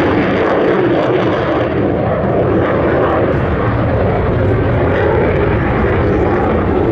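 Loud, steady jet noise from an F-16's Pratt & Whitney F100 turbofan, with a deep rumble that grows stronger about halfway through.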